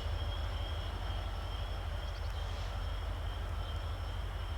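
Steady low rumble of a distant diesel-hauled freight train. Two faint steady high-pitched tones run over it.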